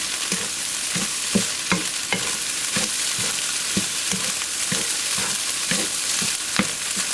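Beef fried rice sizzling in a hot nonstick wok as a wooden spatula stirs and tosses it. The spatula scrapes the pan in quick strokes, about two to three a second, over a steady hiss, as the rice is stir-fried to dry and firm the grains.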